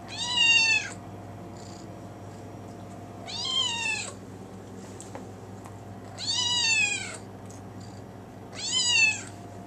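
Gray tabby kitten meowing four times, about three seconds apart, each meow rising and then falling in pitch: a kitten begging for food.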